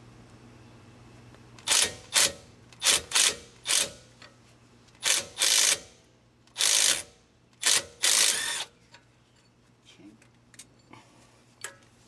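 Impact driver run in a string of about ten short trigger bursts, each under a second, loosening the lower brake caliper slide bolt.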